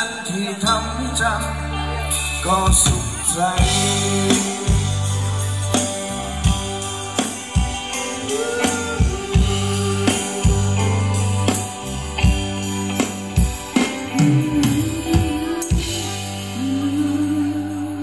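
Live band playing Thai ramwong dance music, with a steady bass line, regular drum hits and a melody on top, fading near the end.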